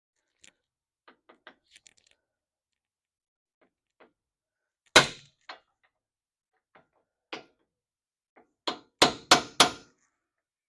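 Hammer blows driving a new rear axle seal into place: a few light taps, one hard strike about five seconds in, another a couple of seconds later, then a quick run of four hard strikes near the end.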